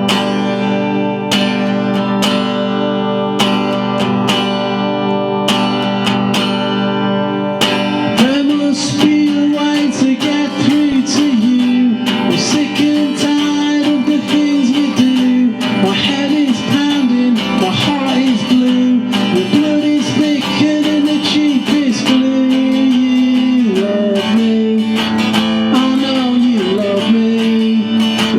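Solo acoustic guitar playing a blues song: regular strummed chords for the first eight seconds or so, then a busier passage with notes gliding up and down in pitch.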